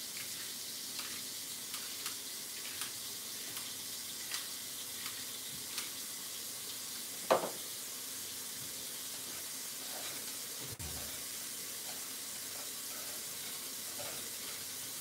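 Rice frying in olive oil in a pot: a steady soft sizzle with scattered light ticks, and one sharp knock about seven seconds in.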